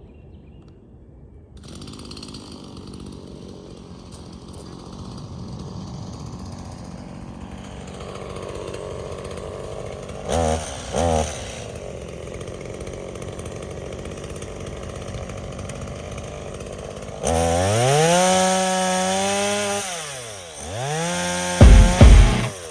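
Stihl MS170 two-stroke chainsaw running, with two short throttle blips about ten seconds in. Near the end it is revved to full speed for about three seconds before the revs drop away. A few loud short bursts follow right at the end.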